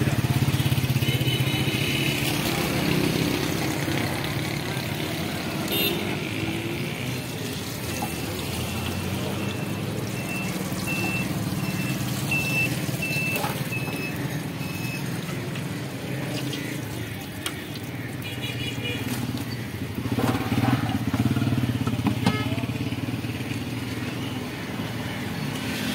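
Street traffic with motorcycle engines running, over samosas deep-frying in a karahi of hot oil. A run of short high beeps sounds in the middle.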